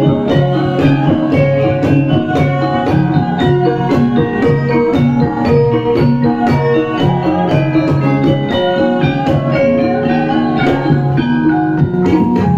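Javanese gamelan ensemble playing a Banyumasan gending: bronze metallophones struck in a steady, even pulse over gongs and kendang drumming.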